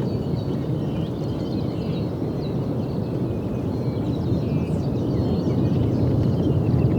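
Kilauea's lava fountain erupting: a steady, deep rumble that grows slightly louder near the end. Faint short high chirps sit above it.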